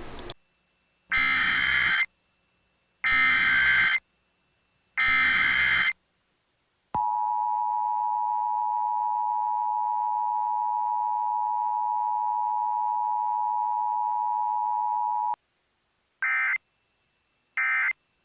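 Emergency Alert System test signal: three one-second bursts of SAME digital header data, then the two-tone attention signal held steady for about eight seconds and cutting off sharply. Two short end-of-message data bursts follow near the end.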